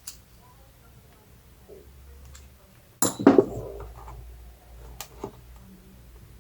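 Small carburetor parts being handled and set down, clinking: a click at the start, a louder clatter about three seconds in, and two sharp clicks about five seconds in.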